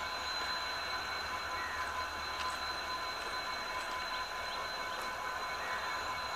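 Indian Railways WDG4 diesel locomotive approaching slowly, its EMD two-stroke diesel engine running with a steady, even drone and a thin high whine over it.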